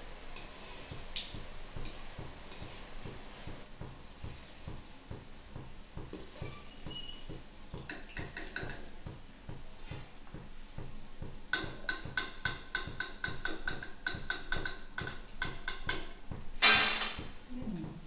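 Wire-mesh skimmer clinking against a steel kadhai while fried boondi is lifted and drained: a few taps about eight seconds in, then a quick even run of metallic taps for about four seconds. Near the end comes one louder clatter as the skimmer is knocked against a steel plate.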